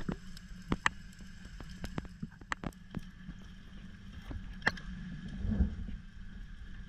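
Underwater ambience picked up by a diving camera: a steady low water rumble with scattered sharp clicks and crackles, and a brief louder swell of water noise near the end.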